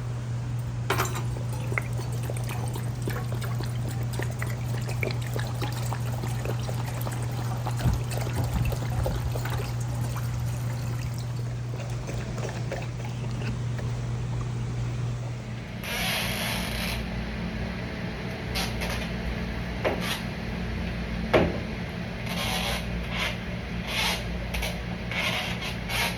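Water running steadily with a low hum for about fifteen seconds, then scattered clinks and knocks of kitchenware.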